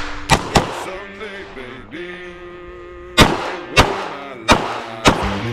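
CZ 75 Compact pistol firing on a stage: two quick shots at the start, a pause of about two and a half seconds, then four more shots about two-thirds of a second apart.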